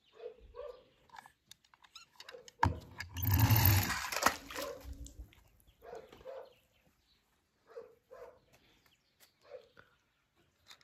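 A small die-cast toy bus splashing into a swimming pool about two and a half seconds in, a short loud splash that dies away over a second or two. Short faint yelps, like a small dog barking, come in pairs now and then.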